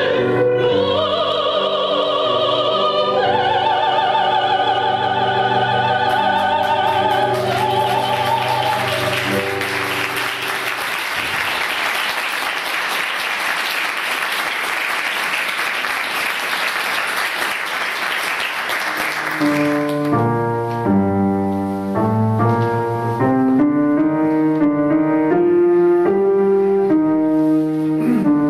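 Two women and a man sing a classical piece with piano accompaniment, holding the final chord. Audience applause follows for about ten seconds. Then a digital piano starts playing alone.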